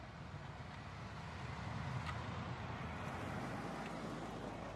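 Jeep Wrangler JKU Rubicon driving slowly through snow toward and past the camera, its engine and tyres making a low rumble that grows louder and is strongest about two seconds in.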